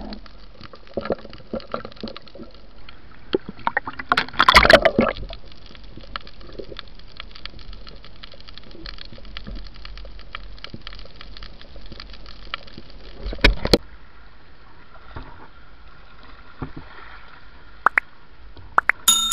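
Underwater water noise around a diver's camera, with sloshing and bubbling full of scattered clicks. There is a louder burst of water noise about four to five seconds in and a shorter one about thirteen seconds in. Right at the end a bell-like chime starts.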